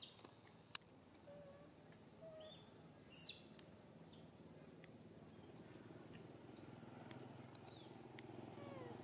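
Quiet forest ambience: a steady high insect drone, with a sharp click near the start and a short, high call falling steeply in pitch about three seconds in. A low hum grows toward the end.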